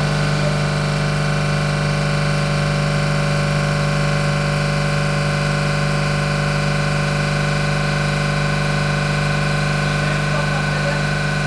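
York JK64 piston refrigeration compressor running steadily on a capacity test, a constant machine hum with a strong low tone and no change in speed or level.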